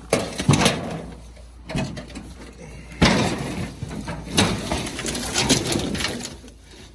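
Corrugated metal roofing sheets being pried up and shifted with a snake hook: an irregular run of clanks, scrapes and knocks, the loudest a sharp clank about three seconds in, with rustling in the brush between.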